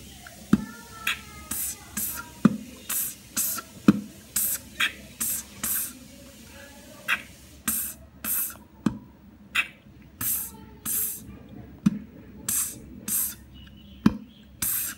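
Human beatboxing at a slow tempo: a simple beginner pattern of "b" bass-drum kicks, hissing "ts" hi-hats and "k" snare clicks, voiced in a steady repeating beat.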